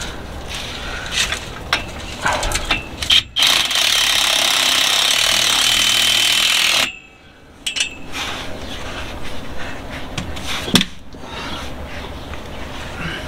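Handheld power driver running a bolt in under the trailer axle for about three and a half seconds, starting a few seconds in and cutting off suddenly, with clicks and knocks of tools and metal parts before and after it and one sharp knock near the end.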